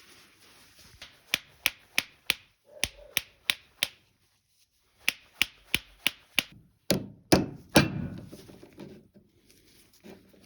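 A hammer tapping on starter motor parts: a run of about nine sharp taps, roughly three a second, a short pause, five more taps, then three heavier knocks that ring briefly.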